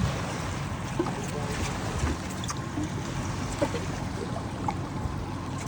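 Charter fishing boat's engine running with a steady low rumble, with water noise around the hull and a few short faint clicks on top.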